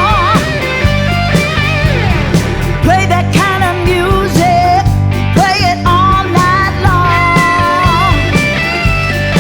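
Blues-rock instrumental break: a lead guitar plays a solo of bent, wavering notes over bass and drums.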